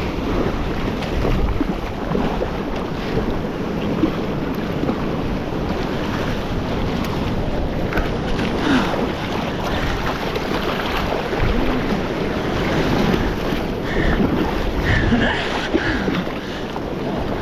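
Gulf surf washing onto the beach, with wind buffeting the microphone.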